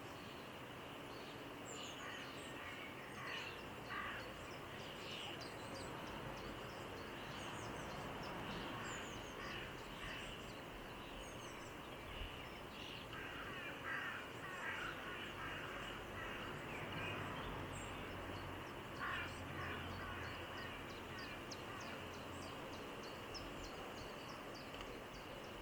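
Mallard ducks and ducklings feeding in shallow water among long grass: repeated short bursts of dabbling and calls, with many short high chirps throughout.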